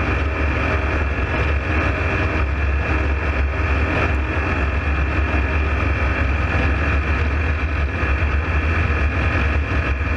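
Steady, loud mechanical running noise with a deep rumble and a faint steady whine above it, cutting off just after the end.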